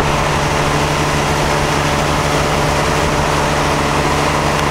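A motorboat's engine running steadily at speed while towing a wakeboarder, a constant low drone with the rush of the churning wake over it.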